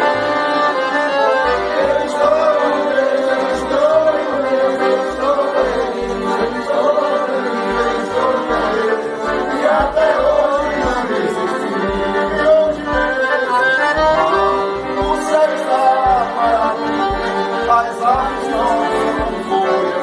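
Several piano accordions playing a tune together: a continuous melody with a steady pulse of bass notes underneath.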